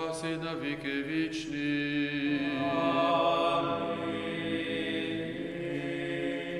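A small group of men singing a Byzantine-rite panakhyda (memorial service) chant a cappella, several voices in harmony, with long held notes.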